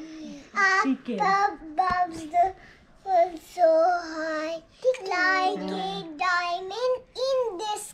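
A young girl singing in a high child's voice, in short phrases with brief pauses between them.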